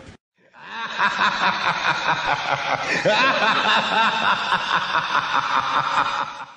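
A group of people laughing together in many overlapping voices. The laughter comes in after a brief gap and fades out near the end.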